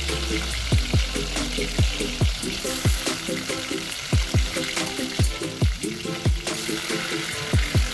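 Chicken pieces frying in hot oil in a Dutch pot, a steady sizzle. Under it runs background music with a steady beat of deep kick drums about twice a second.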